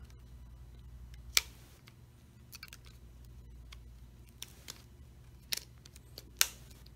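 Bottom plastic housing piece of a Samsung Galaxy Note 8 being pressed onto the phone's frame by hand, clipping into place with a handful of sharp clicks spread over several seconds; the loudest is about a second and a half in.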